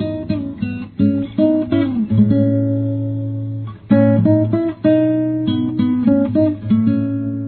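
Acoustic guitar played, plucked notes and strummed chords left to ring.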